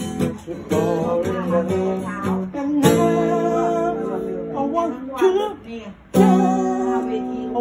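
Steel-string acoustic guitar strummed in slow chords, each chord left to ring, with a voice singing along; the strongest strums come about three and six seconds in.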